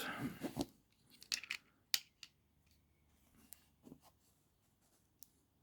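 Leatherman Wave multi-tool pliers being squeezed and worked open and shut by hand, giving scattered clicks and small crunches from the jaws and handles, the loudest cluster a little over a second in. The pliers' pivot is stiff.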